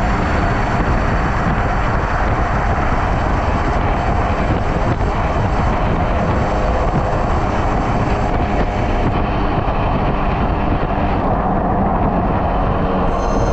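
Steady loud rush of wind and road noise from riding a 72 V 5000 W electric motorcycle at speed, with a faint high whine that drops out for a few seconds near the end.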